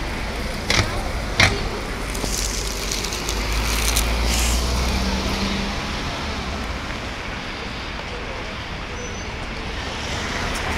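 Street traffic: cars running past and idling at a junction, with a low engine rumble that swells a few seconds in. Two sharp knocks come in quick succession about a second in.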